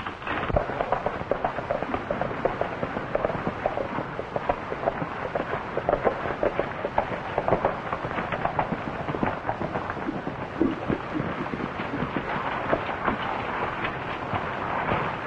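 Horses galloping: a dense, rapid clatter of hoofbeats from two horses on hard dirt ground.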